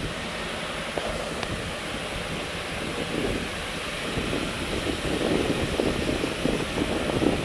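Water jets from an undercarriage washer's row of nozzles spraying up against a brush truck's underside and wheels: a steady hissing splash of water on metal and wet pavement, getting somewhat louder about two-thirds of the way through.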